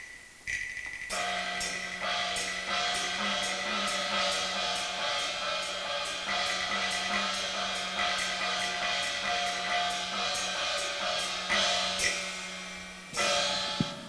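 Cantonese opera percussion of cymbals and gongs playing an entrance passage: steady strokes, a couple a second, over a sustained ringing tone, breaking off near the end with a final loud crash.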